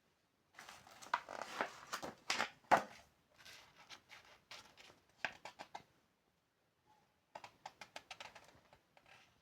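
Rustling and crinkling handling noise with sharp clicks, in two bouts, the second a quick run of clicks.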